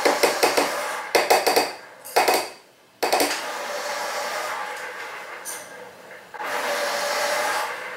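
A spoon tapping quickly against a mixing bowl in three short runs to knock off butter, then scraping and rubbing as it scoops more butter from the tub.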